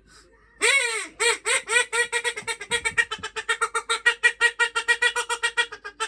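Duck quacking sound effect: one longer falling quack about half a second in, then a long rapid run of quacks at about seven a second until just before the end.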